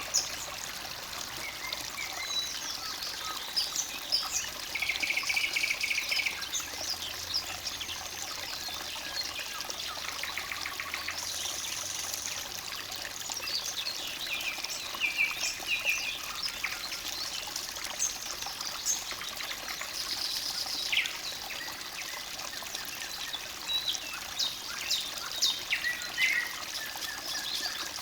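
Forest stream trickling steadily, with several songbirds singing over it in quick chirps, whistles and a few short rapid trills.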